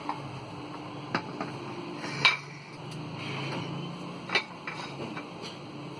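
Utensils clinking against dishes a few times, with three sharper knocks about one, two and four seconds in.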